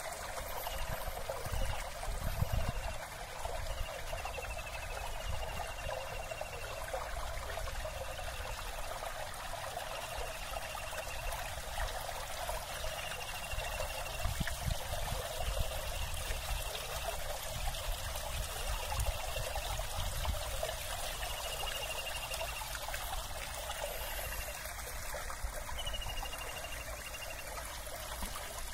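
Steady outdoor rushing noise, with wind rumbling unevenly on the microphone. A short, high, pulsed call repeats every second or two throughout.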